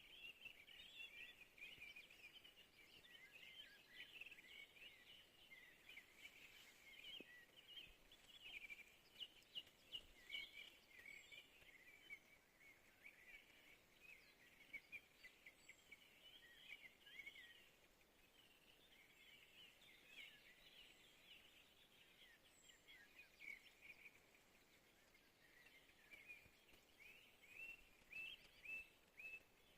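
Faint dawn chorus of many small songbirds chirping and trilling together in a dense, continuous chatter, with a run of quick repeated notes near the end.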